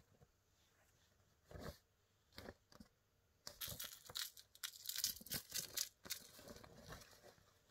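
Kitten scrabbling at and climbing into a reusable fabric shopping bag, the bag rustling and crinkling. A few separate soft knocks come first, then a dense run of crackly rustling from about halfway through.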